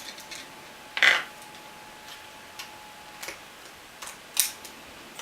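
Scattered small clicks and taps of a screwdriver and small parts being handled while screwing a laptop's underside back together, the loudest about a second in and another sharp click near the end.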